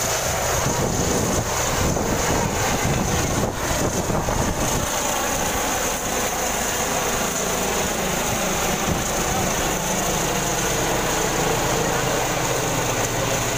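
Helicopter lifting off from the pad and climbing away, its rotor and engine running steadily at full power.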